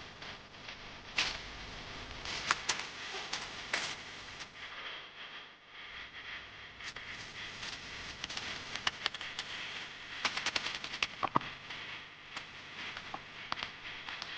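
Food frying in hot oil in a pan: a steady sizzle with irregular pops and crackles, which come thickest about ten seconds in.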